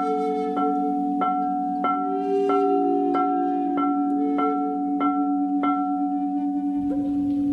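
Crystal singing bowls ringing in a sustained, layered drone, while a bright bell-like note is struck at an even pace, about one and a half strikes a second, each strike ringing on over the drone.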